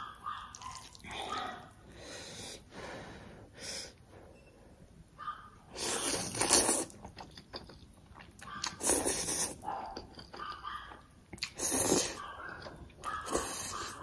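A person slurping up forkfuls of black bean noodles: a run of short, hissy slurps, the loudest four in the second half.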